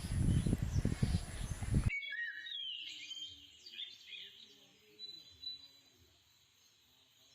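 Low rumbling noise bursts for about the first two seconds. The sound then cuts abruptly to a quiet stretch of faint, short parrot chirps that fade away, ending in silence.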